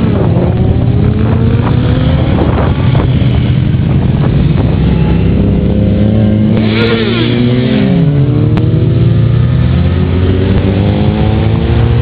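Convoy of motorcycles riding past one after another, their engines running loudly with pitches that climb as they pull away. About seven seconds in, one bike passes close and its engine note drops sharply.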